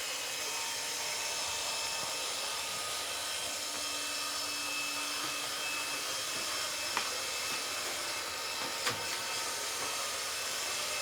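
Roomba robot vacuum running steadily, a whirring hiss with a faint high whine from its motor and brushes, with two faint knocks about seven and nine seconds in.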